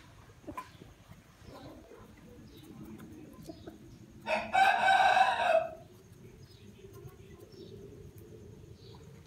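Aseel rooster crowing once, a short crow of about a second and a half near the middle, with faint hen clucks and small ticks around it.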